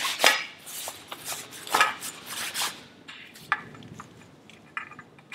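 Aluminium bimini frame tubes clinking and knocking against each other and the floor as they are handled and fitted together, several irregular sharp clinks, the loudest near the start and about two seconds in.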